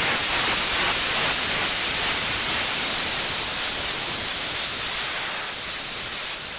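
Cold gas thrusters of a lander test vehicle hissing steadily as it flies, easing off a little near the end.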